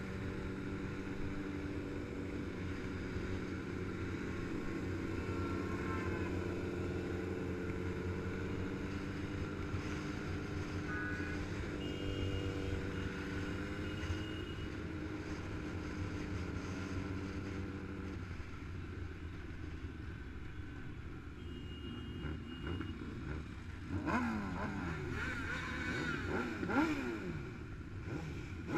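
Motorcycle engines running steadily while riding in a group. Past the middle the steady engine note drops away, and near the end several engines rev up and down, one rev standing out.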